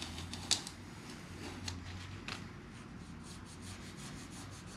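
Quiet rubbing and scratchy handling noise with scattered light clicks, the sharpest about half a second in, over a low steady hum.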